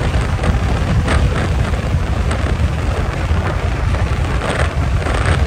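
Heavy wind buffeting the microphone, a steady loud low rumble, as an electric scooter runs at about 94 km/h.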